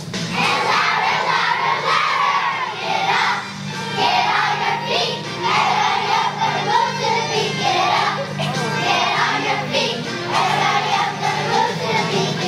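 A group of young children singing together as a choir, over instrumental accompaniment with steady low notes.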